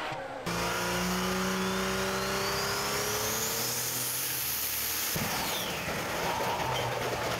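Cummins diesel of about 3,000 hp running at full power on a chassis dyno, a steady engine note with a whine climbing in pitch as it pulls. About five seconds in the note stops abruptly as the engine blows up, leaving a loud rushing noise.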